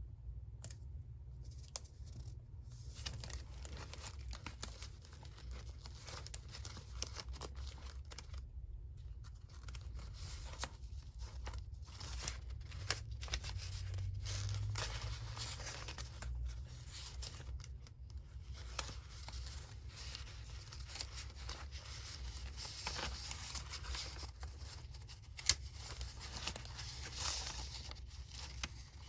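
Paper being torn and handled close to the microphone for a collage journal: a continuous scratchy rustle with many small clicks, pausing briefly about eight and a half seconds in.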